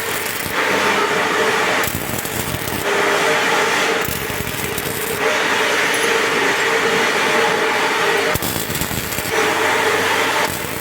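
Semi-automatic (MIG) welding arc crackling in runs of one to three seconds, broken by short pauses between welds.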